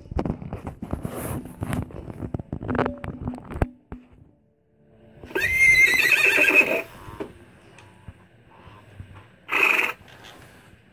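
Small fluffy dog giving a high, wavering whine of about a second and a half, about five seconds in, after a few seconds of rustling and knocking from handling. A short, sharp noisy burst follows near the end.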